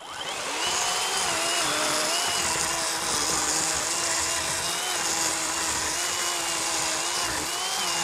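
Worx 40-volt cordless electric chainsaw with an 18-inch Oregon bar, spinning up and then running at full speed as it cuts through a large fallen log, its motor whine dipping and wavering slightly under load.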